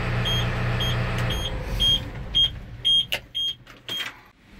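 A Tadano Faun crane cab's warning beeper, most likely the PAT load-moment system's alarm, beeping at a high pitch about twice a second and stopping near the end. Under it a steady low hum cuts off about a second in, and a few knocks sound in the second half.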